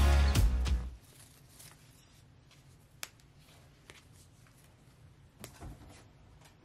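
Background music with a steady beat cuts off about a second in. Then comes faint rustling with a few light ticks as hands handle a pair of underwear and its paper price tag.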